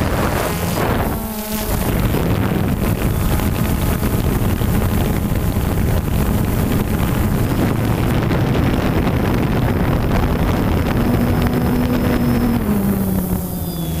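DJI Phantom 2 quadcopter's motors and propellers buzzing steadily, as heard by the camera riding on it, with wind rushing over the microphone. The pitch rises slightly about 11 seconds in, then drops back a second and a half later as the throttle changes.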